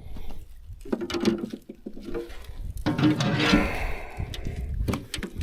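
Irregular knocks, taps and rustling from handling a small sturgeon tangled in fishing line.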